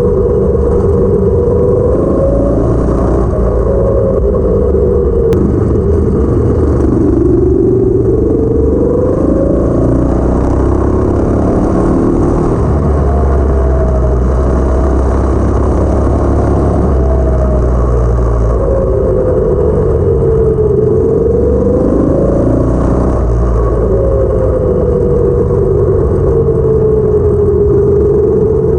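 Go-kart's 212cc single-cylinder engine with a stage 1 kit running hard while driving, its pitch rising and falling several times as the kart speeds up and eases off.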